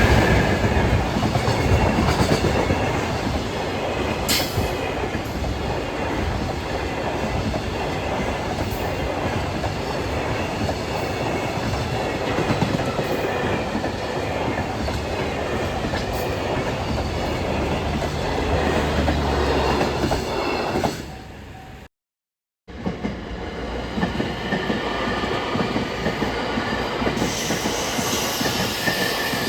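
Train running on the rails, wheels clattering steadily. About 21 seconds in the sound fades and cuts out for a moment, then a second train's running sound picks up with a faint high wheel squeal near the end.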